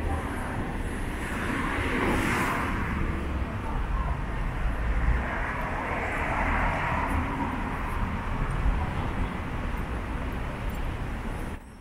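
City road traffic: a steady rumble with vehicle noise swelling and fading twice as cars pass. The sound drops abruptly just before the end.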